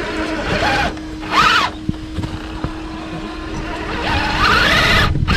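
Axial SCX6 1:6 scale RC crawler's electric drivetrain whining as it crawls over rocks, with scattered knocks of the tyres and chassis on stone. The whine rises in pitch briefly about a second and a half in, and again near the end as the throttle is opened.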